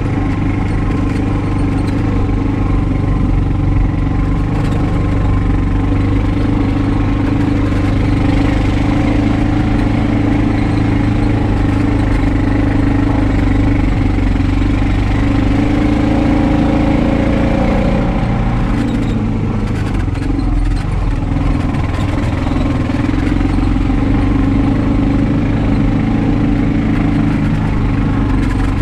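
A 2021 Honda Pioneer 520 side-by-side's single-cylinder engine running steadily while driving. The engine note drops and wavers about two-thirds of the way through, then steadies again.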